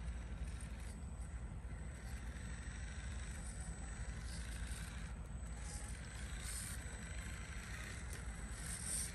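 A 1/10-scale Losi Night Crawler SE RC rock crawler running slowly as it crawls up a pile of stacked bricks, under a steady low rumble.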